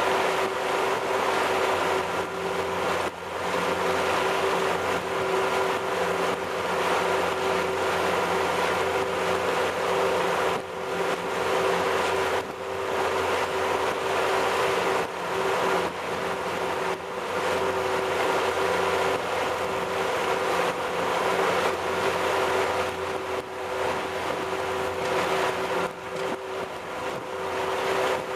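350 cubic-inch V8 MerCruiser sterndrive engine running steadily with the boat underway at speed, a constant engine drone over the rush and splash of water churning along the hull.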